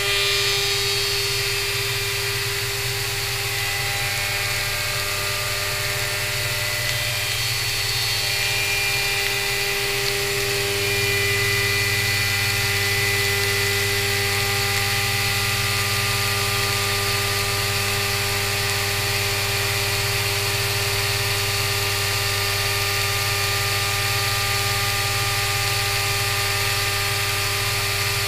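CNC vertical mill machining an aluminium boxway bar under flood coolant. A steady whine from the spindle and cut sits over an even hiss of coolant spray, shifting slightly and growing a little louder about ten seconds in.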